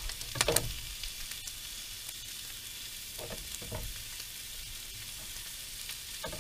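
Sausage sizzling steadily in a nonstick frying pan on a portable gas camp stove, with a few brief knocks, the loudest about half a second in.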